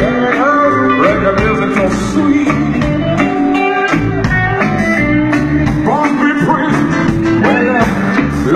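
Live band music with a singer over a steady beat and bass line.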